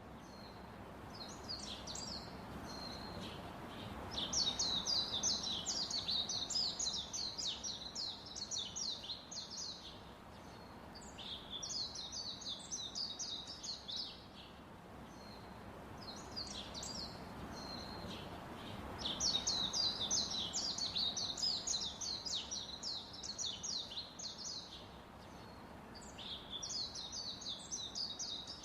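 Small birds chirping in bursts of quick, high notes, some bursts a few seconds long. The same run of bursts repeats about every 15 seconds, over a faint steady background hiss.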